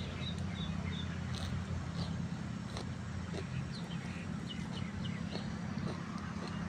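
A steady low engine hum, with a few short high bird chirps and faint scattered clicks over it.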